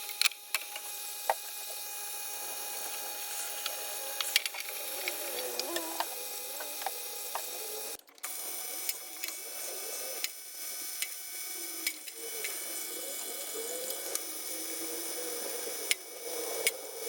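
A small machine tool's motor running with a steady high whine, with scattered sharp ticks and a wavering mid-pitched squeal from cutting. It breaks off briefly about eight seconds in and resumes.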